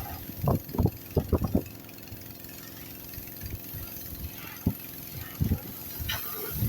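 Pressure washer driven by a horizontal-shaft Honda engine, running steadily, with several short thumps in the first couple of seconds and two more later.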